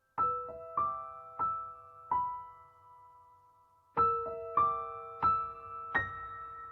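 Gentle, slow piano music: notes struck one after another, each ringing on and fading, four in a first phrase, then a pause of about two seconds before a second phrase of four.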